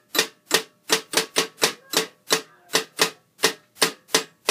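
Drumsticks tapping quickly on a child's makeshift kit of hand drums and toy percussion: a fast, uneven run of sharp, clicky strikes, about four or five a second.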